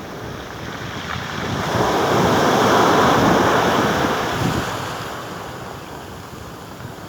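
Sea waves on the shore: one wave swells about two seconds in, peaks, then washes out and fades. Wind buffets the microphone underneath with a low rumble.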